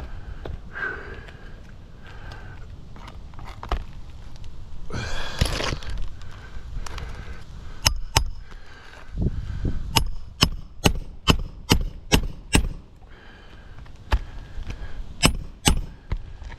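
Sharp knocks and cracks from work on an asphalt shingle roof: two about eight seconds in, a quick regular run of about eight close together around ten to thirteen seconds, and a few more near the end. A brief scraping rush comes about five seconds in.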